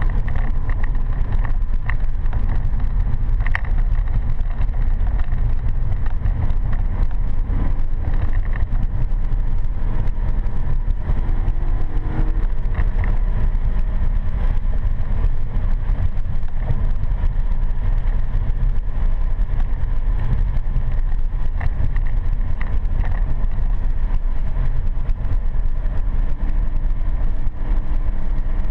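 Cabin sound of a BMW M3 E92 lapping a road course: a loud, steady low rumble of road and wind noise with the S65 4.0-litre V8 underneath, its pitch climbing as the car accelerates, about halfway through and again near the end.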